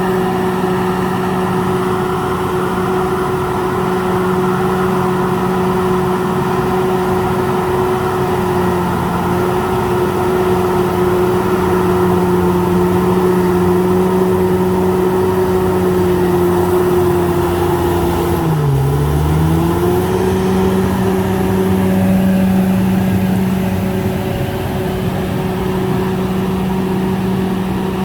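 Komatsu D68ESS bulldozer's diesel engine running steadily at working speed, with a constant pitched drone; about two-thirds of the way through the pitch sags for about a second, then recovers.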